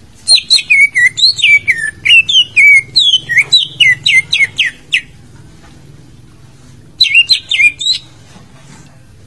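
Leafbird (cucak ijo) singing: a rapid string of loud, clear whistled notes that slide up and down, lasting about five seconds, then after a short pause a second, briefer phrase.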